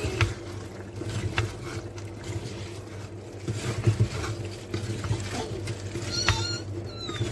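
Wooden spoon stirring and scraping spinach and potatoes in a clay pot, giving scattered clicks and knocks over a steady low hum. Near the end there is a short, high squeaky call.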